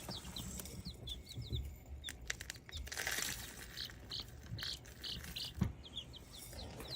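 Buff Orpington chicks peeping in many short, high chirps, some falling in pitch. This is their startled, nervous, uncertain call, a "whoa, what was that" sound and not a distress or alarm call. A few light taps and a brief hiss come about two to three seconds in.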